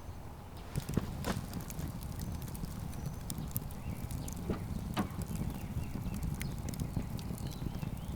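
Campfire crackling: irregular sharp pops and snaps over a low, steady rumble.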